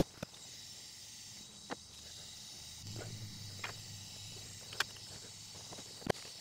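Small metal tools and valve parts clicking and tapping against the valvetrain of an open engine cylinder head: a few sharp isolated clicks, a second or more apart, over a faint steady hiss.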